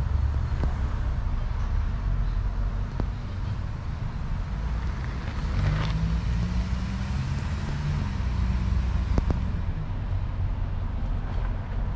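Steady low rumble of distant road traffic, with an engine note rising and falling between about five and nine seconds in as a vehicle goes by.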